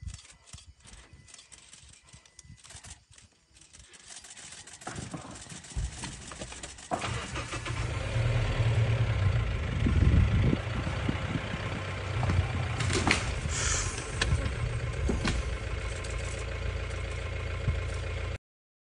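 An engine running steadily, growing louder in steps about five and seven seconds in, with a few sharp high sounds over it in the second half; the sound cuts off abruptly near the end.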